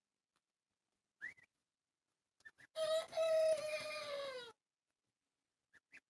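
A long call from farmyard fowl, one drawn-out note that holds and then falls in pitch, lasting under two seconds. Short high peeps come about a second in and again near the end.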